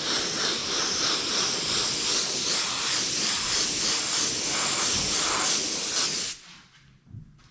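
Airbrush hissing steadily as it sprays, cutting off suddenly about six seconds in.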